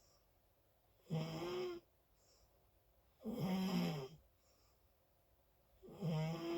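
Loud snoring in a slow, regular rhythm: three snores about two and a half seconds apart, each under a second long with a buzzing, pitched tone, and a faint breath between them.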